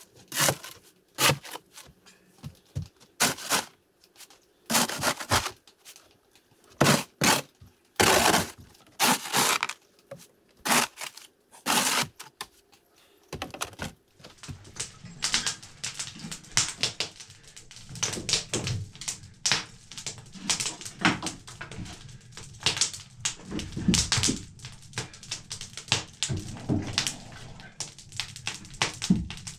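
Separate scrapes and knocks of a snow shovel working on a wooden deck, roughly one a second. About halfway the sound changes to a dense run of quick clicks and crackles from a wood fire burning in an open wood stove.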